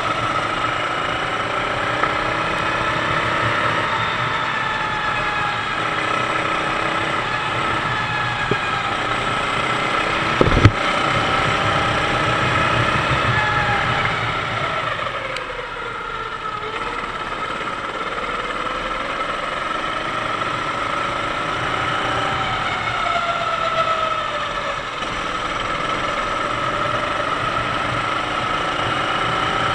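Sodi kart's 390cc four-stroke engine running hard on track, its pitch falling as it slows and rising again as it accelerates, twice over. A brief thump about ten seconds in.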